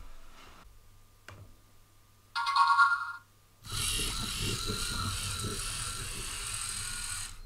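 A loud electronic beep of under a second, then the LEGO Mindstorms EV3 robot's motors driving it fast along the line: a steady whirring with wheel noise that lasts about four seconds and stops near the end.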